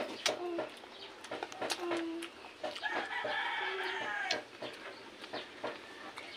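A rooster crowing once, a long call of about a second and a half starting about three seconds in, over scattered small clicks and smacks of eating with the hands.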